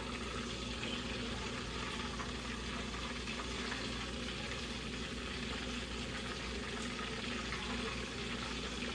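Battered flounder deep-frying in a pot of hot oil, a steady sizzle.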